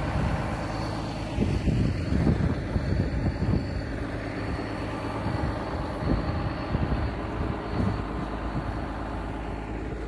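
Farm tractor's diesel engine running steadily at a constant speed, heard from close by outside, with some uneven low rumbling over it.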